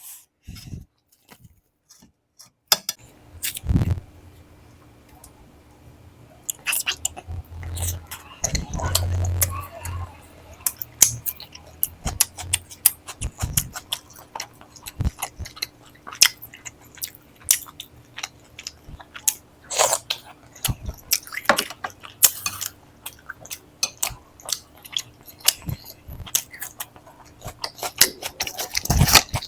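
A person eating close to the microphone: chewing and biting food, heard as many short wet clicks and smacks, with a brief low rumble about a third of the way in.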